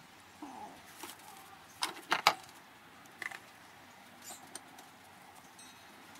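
A few short, sharp metallic clicks and knocks from steel parts and tools being handled on a workbench, the loudest cluster about two seconds in, with fainter taps later.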